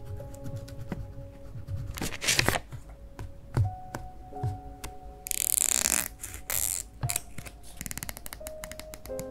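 Paper sticker handling: rustling as a sticker is lifted from its sheet and pressed onto a paper page, with a brief loud scratchy rustle about halfway through. Near the end come quick crisp snips as small steel scissors cut a paper sticker. Soft background music plays throughout.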